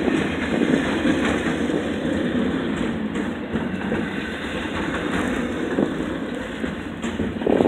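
Container train's freight cars rolling past at a grade crossing: a steady rumble of steel wheels on rail, with scattered clicks as the wheels cross rail joints.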